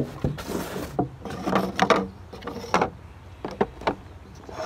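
Handling noise from foam packing and a plastic RC boat hull: irregular short rubs, scrapes and light knocks as the boat is lifted out of its box and set onto its stand.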